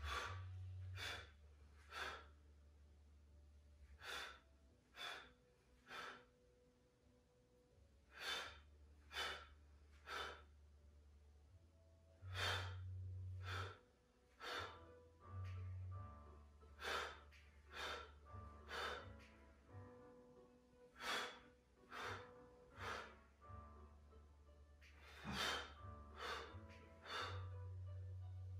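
A man's short, forceful exhaled breaths, about one a second in runs, one with each repetition of a weighted crunch. Quiet background music with a low bass line runs underneath.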